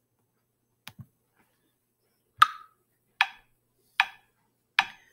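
Metronome count-in: four sharp ticks evenly spaced at about 75 beats a minute, the first one the loudest, starting about halfway through. Two faint clicks come about a second in.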